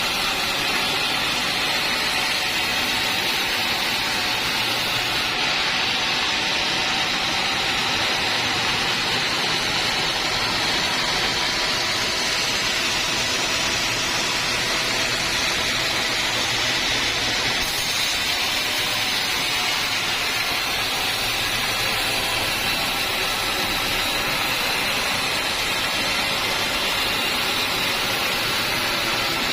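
Homemade band sawmill running steadily through a teak log, a continuous even saw-and-motor noise with no pauses.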